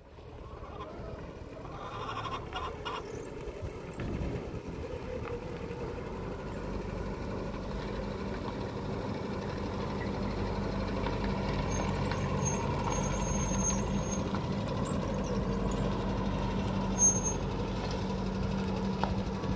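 An engine running steadily with a low, even hum, growing louder over the first few seconds and then holding.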